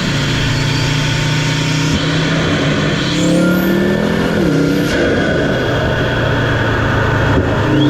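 Audi RS3 8P's turbocharged five-cylinder engine, breathing through an 034 Motorsport carbon intake, pulling under acceleration. Its note climbs about three seconds in and drops sharply at a gear change a second and a half later. A high whine rises over the climb and cuts off at the shift.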